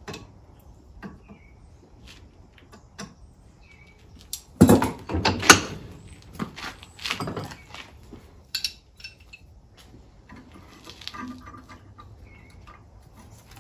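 Steel tools clanking and knocking against a blacksmith's leg vise as a hot square bar is clamped and twisted with a twisting wrench, with a louder run of clanks about five seconds in.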